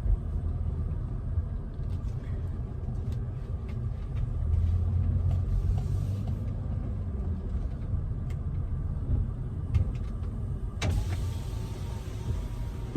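Car engine idling, heard from inside the cabin as a steady low rumble with a few light clicks. About eleven seconds in, a power window motor whirs and outside air noise comes in.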